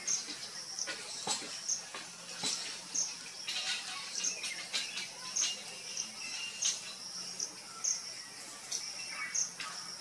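Woodland ambience: a short, high chirp repeats about every three-quarters of a second, over fainter bird calls and scattered sharp clicks.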